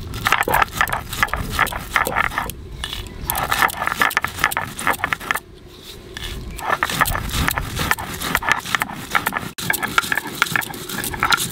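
Dry-roasted whole spices being ground on a Bengali shil-nora: a stone roller scraping and grating over a flat stone slab in quick back-and-forth strokes. The strokes come in runs broken by brief pauses.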